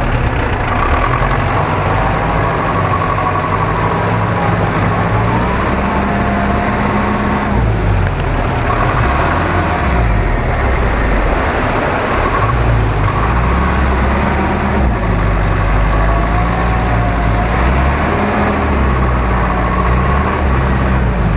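Off-road cab-over truck's engine working hard as it crawls through deep mud, its pitch rising and falling in steps every few seconds, with a steady high whine over it.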